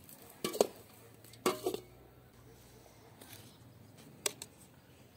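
Metal ladle clinking against a large steel bowl as chopped salad is stirred: two sharp clinks about half a second in, a few more around a second and a half, and one more near four seconds, each with a short ring.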